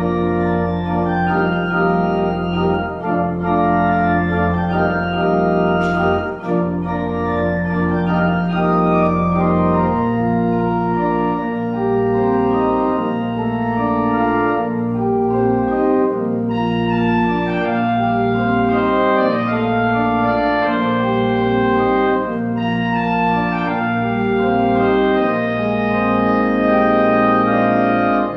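Pipe organ playing slow, sustained chords over held bass notes, the chords changing every second or two.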